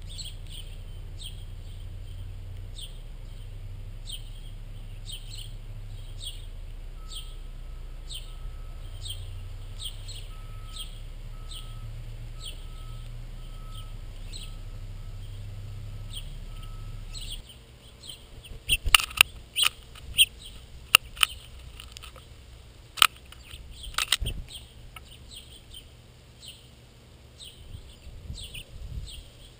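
A bird chirping over and over, about two high chirps a second, over a low steady hum that stops about 17 seconds in. After that come a run of loud sharp clicks and knocks, then quieter chirps.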